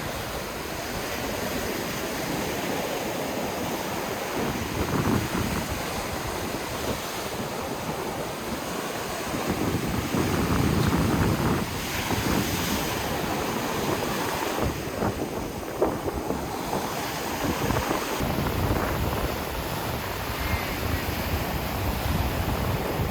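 Sea surf washing onto a beach, with wind buffeting the microphone; the noise swells and eases several times as waves come in.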